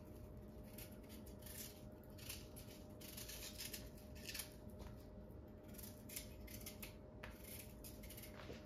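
Faint, repeated scraping strokes of a kitchen knife working on a raw vegetable, irregular at roughly two a second.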